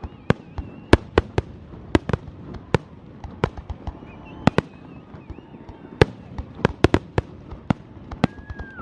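Fireworks going off: a rapid, irregular series of sharp bangs, some coming in quick pairs, with faint whistling tones between them.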